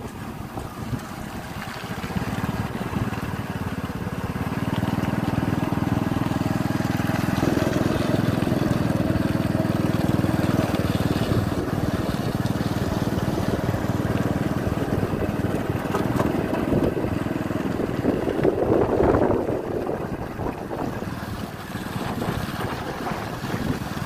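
Small motor vehicle's engine running steadily while moving, with wind rushing over the microphone. It grows louder a few seconds in.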